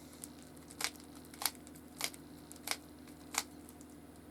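Rubik's cube being turned by hand: five sharp plastic clicks, about one every two-thirds of a second, over a faint steady low hum.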